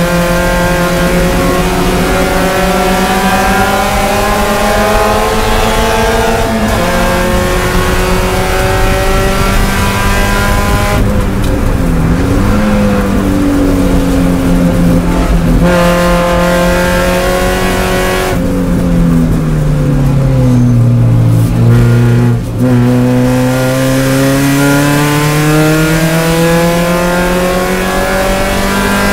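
Spec Miata's four-cylinder engine heard from inside the cockpit at racing speed, revs climbing under throttle, falling twice as the driver lifts and brakes for corners, then rising steadily again to near the end. A constant hiss runs underneath.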